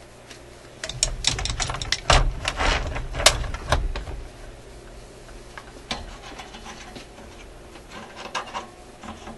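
Cordless electric screwdriver running for about three seconds, backing out a cabinet screw, with rattling and clicks over the motor hum. It is followed by softer scrapes and clicks as the back panel is handled.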